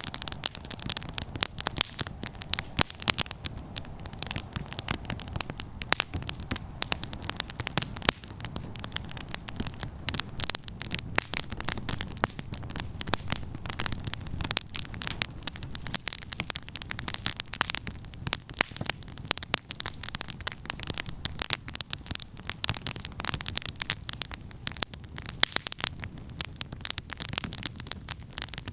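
Wood campfire crackling, with a dense, irregular run of sharp snaps and pops over a low steady rumble.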